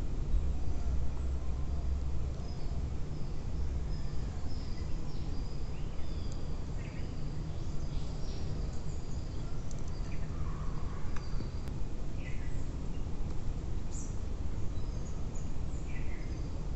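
Forest ambience: a steady low rumble with scattered short bird chirps and whistles through it.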